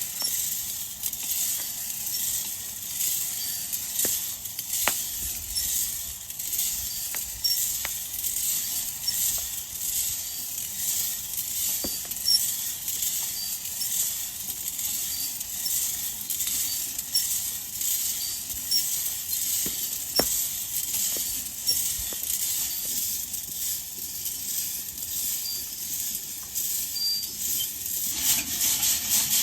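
Wood fire crackling: a steady hiss with scattered sharp pops, which changes to a fuller rubbing sound near the end.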